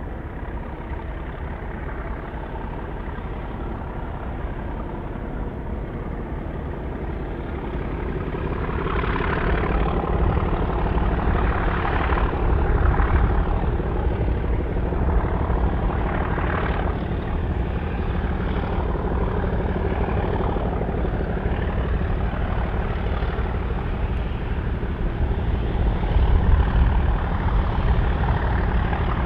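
Class 37 diesel locomotives working a railhead treatment train past: the steady drone of their English Electric V12 engines, growing louder about eight seconds in and swelling again near the end.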